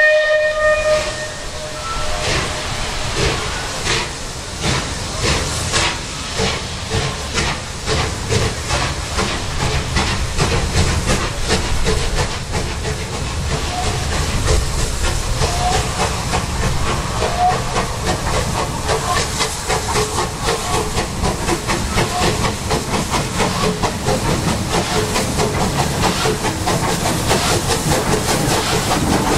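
Steam locomotive 34027 Taw Valley, a rebuilt Bulleid West Country class Pacific, ends a whistle blast about a second in. It then draws nearer under steam, its exhaust beats chuffing in a rapid, regular rhythm with a steady hiss of steam.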